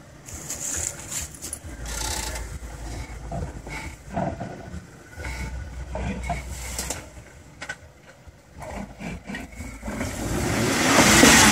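Rock-crawler engine running at low revs, with scattered knocks and clicks. It rises to a louder run near the end.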